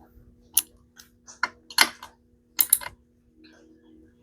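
Several short, sharp clicks and knocks of small hard parts being handled during hand work on a chainsaw, about six of them over two or three seconds. A faint steady hum runs underneath.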